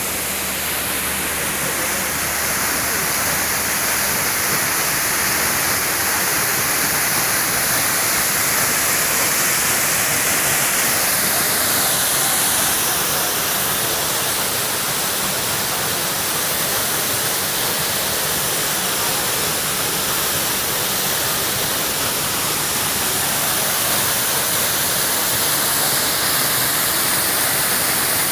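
Waterfall pouring down a rock face: a steady, loud rush of falling water.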